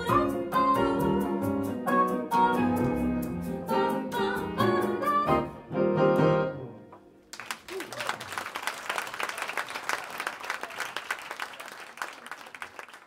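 A small bossa nova band (woman singing, with guitar, piano and double bass) plays the closing bars of a song, which ends about six and a half seconds in. An audience starts applauding about a second later, and the applause fades out near the end.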